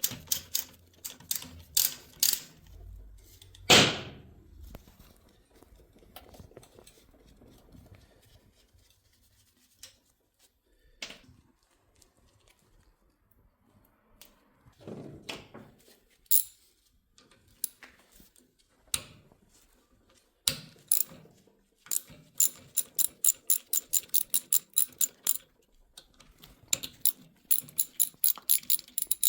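Metal hand tools knocking and clinking on a starter motor as it is dismantled on the bench. Near the end come two runs of fast, even clicking.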